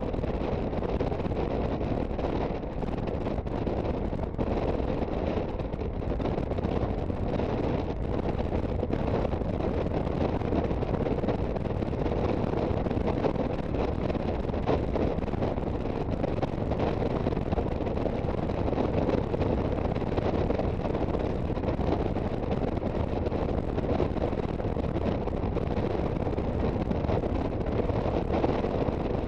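Steady wind rushing over the microphone while riding, with the Aprilia Sportcity Cube 250 scooter's single-cylinder engine running underneath.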